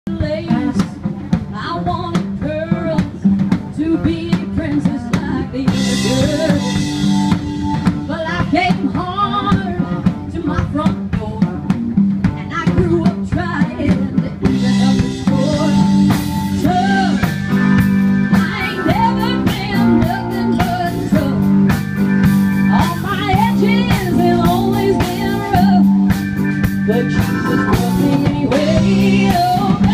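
Live band playing a song: a woman sings lead into a microphone over a drum kit, electric guitars and keyboard.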